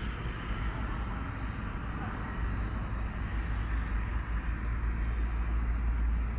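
Steady low rumble with a hiss of background noise, with no distinct event standing out.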